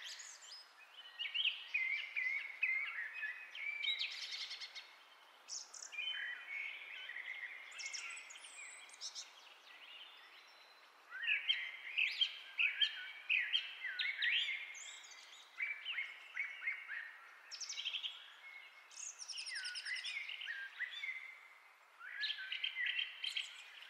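Birds chirping and singing in the background: bursts of short high chirps and quick trills, with a few brief lulls.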